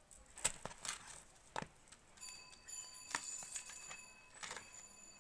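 Plastic packaging and a cardboard phone box handled: a few short rustles and clicks. A steady high electronic tone comes in about two seconds in and is held for nearly three seconds.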